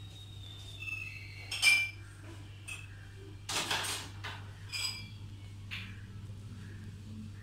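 Light clinks of glass dishes, a sharp one about a second and a half in and another near five seconds, with a brief scraping rustle between them, over a steady low hum.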